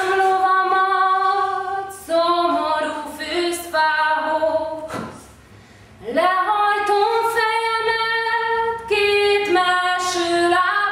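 A woman singing unaccompanied in long, held notes, phrase by phrase, with a short break about five seconds in.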